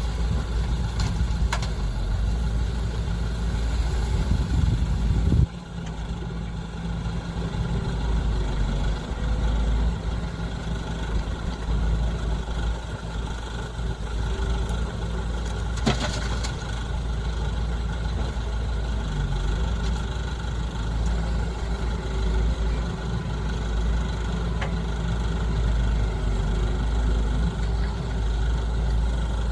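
Diesel engines of excavators and dump trucks running steadily, a low drone that drops suddenly in level about five seconds in, with one sharp click near the middle.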